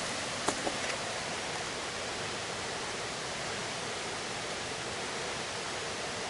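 Steady, even rushing noise, with two light taps about half a second in.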